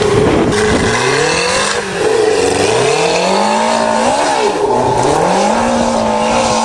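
Motorcycle-engined dune buggy accelerating away, its engine revving up in several rising runs through the gears, then holding a steady note near the end. The engine is misfiring, running on only three cylinders.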